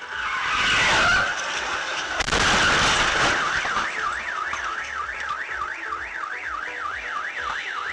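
A car crash heard as two loud bursts of crunching noise, one in the opening second and another about two seconds in. A car alarm then wails up and down, about two and a half sweeps a second.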